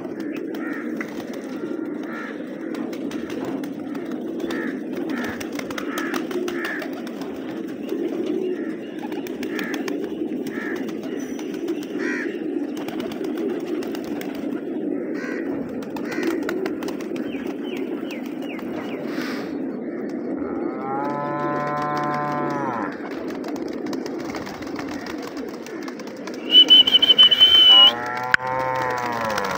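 A large flock of domestic pigeons cooing together in a steady low murmur. In the last third, cattle moo twice, and just before the second moo a loud, high, steady tone sounds for about a second and a half.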